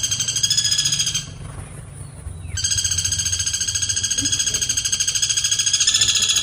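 Woodpecker giving long, rapid rattling trill calls twice: the first breaks off about a second in, and the second starts after a short pause and runs about four seconds.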